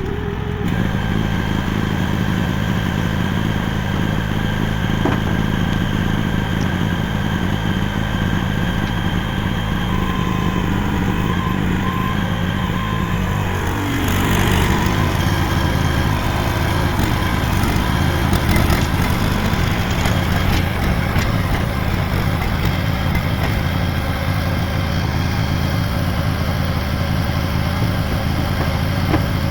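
AGT H12 mini excavator's small engine running steadily. About halfway through the pitch dips briefly, and after that it runs a little louder and harsher.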